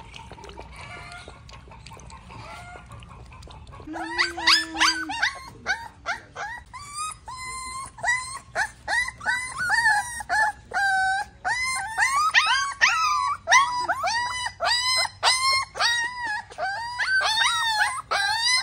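Young puppies crying: a quick string of short, high-pitched whines and yelps, several a second, starting about four seconds in.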